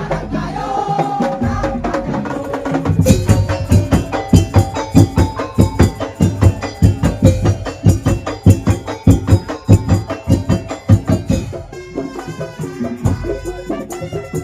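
Ul daul band playing Madurese percussion music: a fast, dense beat of drums and struck percussion with melodic notes over it, lighter at first and heavier from about three seconds in, easing again near the end.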